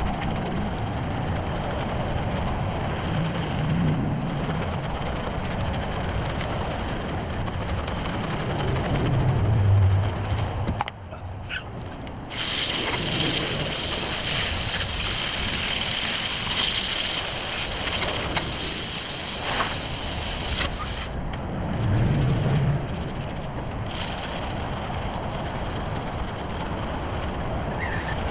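Pressure washer running steadily with a low motor rumble, its spray hissing loudly from about twelve seconds in until about twenty-one seconds in.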